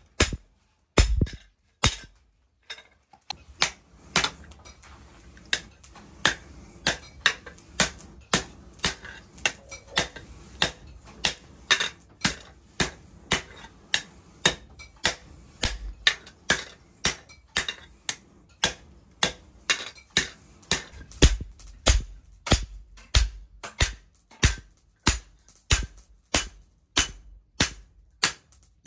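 Hammer blows on a red-hot steel cleaver blade lying on a steel anvil, a steady run of sharp metal strikes at about two a second, with a brief pause about two seconds in.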